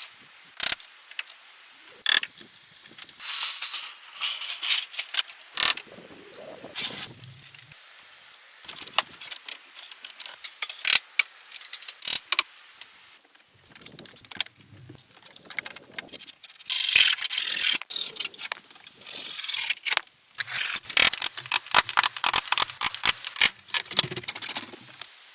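Hand work on timber: a long run of irregular sharp knocks and clicks, broken by several rasping bursts a second or two long.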